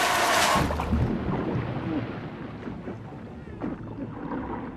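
Loud splash and churning water of a person plunging into a lake. About a second in it cuts to a quieter, muffled underwater sound.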